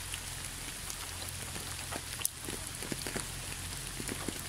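Steady rain falling, an even hiss with scattered individual drops ticking throughout and one sharper drop about two seconds in.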